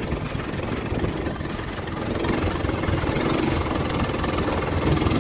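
A small fishing boat's engine running steadily under a dense hiss of storm noise, growing a little louder about two seconds in.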